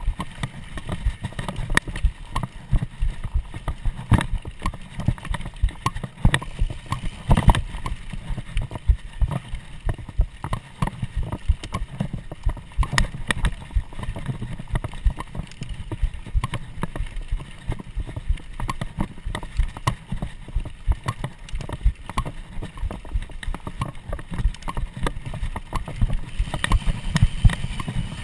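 Mountain bike ridden fast over a bumpy dirt trail: dense, irregular rattling and knocking from the bike jolting over the ground, over a constant low rumble of tyres on dirt.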